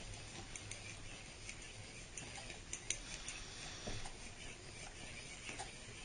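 Faint, irregular plastic clicking and scratching from a microwave turntable motor being cranked slowly by hand through its large plastic gear.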